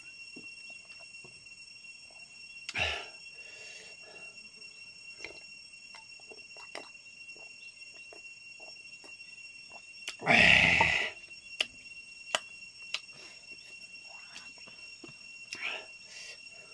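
Sounds of a man eating and drinking by hand from a bowl: faint small clicks and mouth noises, a short gulp-like sound near 3 s, and a loud breathy mouth noise lasting about a second a little after ten seconds in. A steady high insect drone runs underneath.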